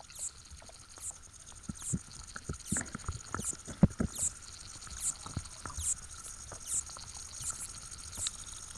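Underwater pond sound through a hydrophone: a regular series of short, high, falling chirps, a little over one a second, the stridulation of a lesser water boatman rubbing its penis against its body. Scattered clicks and ticks come in the middle, the sharpest a little under four seconds in.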